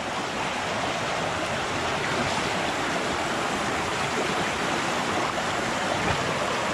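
Mountain torrent rushing over boulders and stones, a steady even rush of water.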